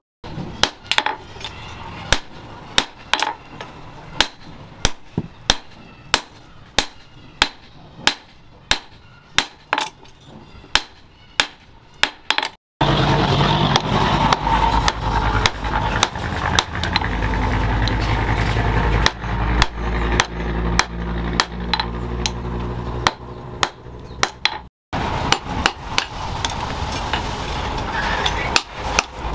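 Hand hammer striking a red-hot axe head of leaf-spring steel on a steel post anvil, sharp ringing blows about twice a second. After a break, a loud steady hum with only scattered strikes takes over for about twelve seconds. Then the hammering resumes over a steadier background noise.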